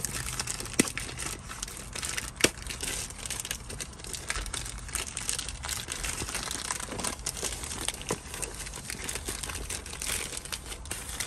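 Clear plastic shipping bag crinkling as hands pull and stretch it open around a boxed adapter, with two sharp snaps about 1 and 2.5 seconds in.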